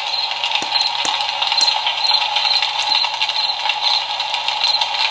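Background campfire ambience: a steady crackling hiss with a few scattered sharp pops, and a soft high pulse about twice a second.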